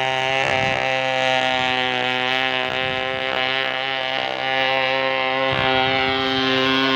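Brush-cutter engine driving a radio-controlled boat, running steadily at an even pitch.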